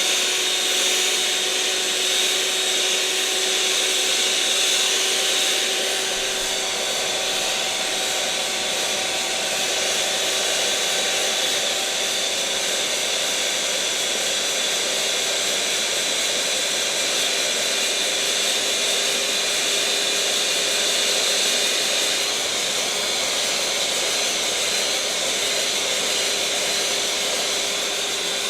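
Electric mixer motor running steadily at one speed: an even whir with a constant hum-like tone underneath, unchanging throughout.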